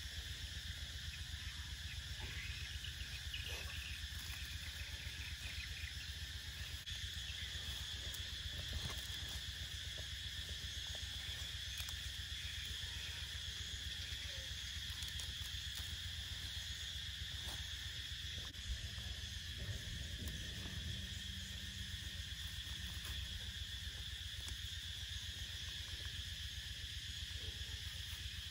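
Steady insect chorus, a continuous high-pitched drone, over a low steady hum, with a few faint small clicks.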